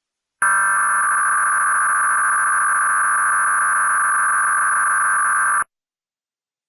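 Emergency Alert System test signal played back lowered in pitch: a loud, steady electronic tone that starts about half a second in and cuts off suddenly about a second before the end.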